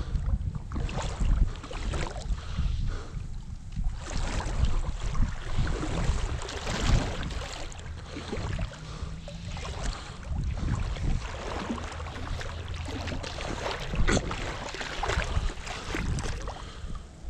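Irregular splashing and sloshing of creek water as a wet magnet-fishing rope is hauled in hand over hand, with a low rumble of wind on the microphone.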